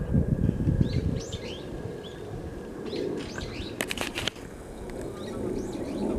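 Small birds chirping: repeated short, high, downward-sweeping chirps. A low rumbling noise drops away about a second in, and a few sharp clicks come near the middle.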